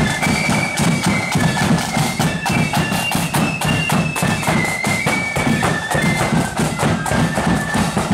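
A marching flute band playing a high tune in unison, with drums beating a steady marching rhythm underneath.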